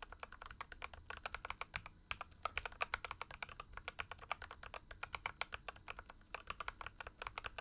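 Mechanical keyboard typed on steadily with uniform-profile keycaps: a quick run of sharp key clacks, several a second, with a short pause about two seconds in. It has the higher-pitched, clackier tone that the smaller cavity of a uniform profile gives.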